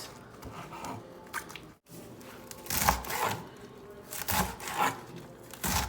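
Knife slicing through rolled-up collard green leaves on a cutting board, several separate cuts.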